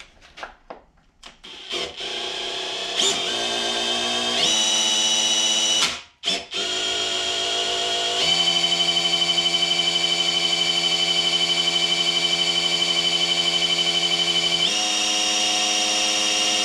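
Cordless drill spinning the oil pump of an LT1 small-block V8 to prime the oil system and lifters. A few short trigger blips come first, then a steady motor whine that shifts in pitch several times, with a brief stop about six seconds in.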